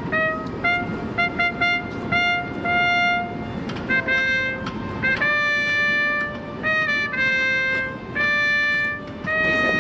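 A military trumpet call played by a soldier: a run of short, quick notes, then longer held notes, the last one held on past the end.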